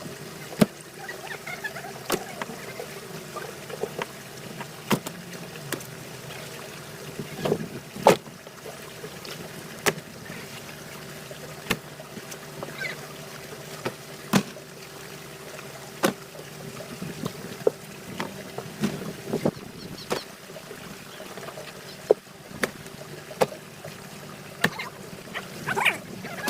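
Fishing boat's engine running steadily at sea, with sharp knocks every second or two on top.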